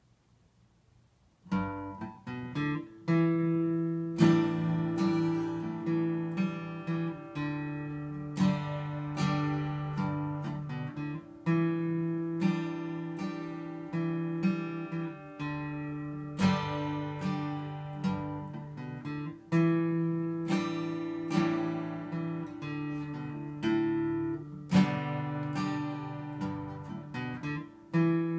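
Acoustic guitar played solo, strummed chords starting about a second and a half in and ringing on between strokes, with no singing.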